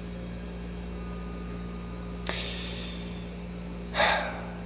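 Steady low electrical hum with a man's breathing over it: a click and a soft breath about two seconds in, and a louder breath in near the end.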